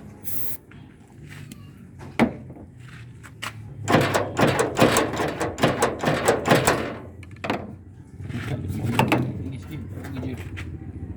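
A short spray hiss of lubricant, then the Jeep's door lock and latch being worked over and over, a run of sharp clicks and clunks, as the sticking lock is freed.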